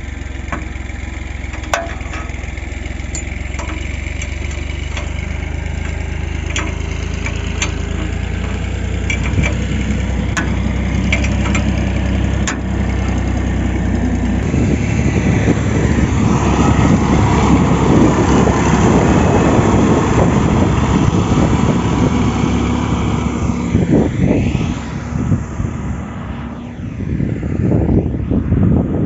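Tractor diesel engine idling steadily, with scattered sharp metallic clicks from a spanner tightening a bolt on the steel dozer-blade frame. About halfway through the engine noise becomes louder and rougher as the Mahindra 275 DI XP Plus tractor drives across the soil.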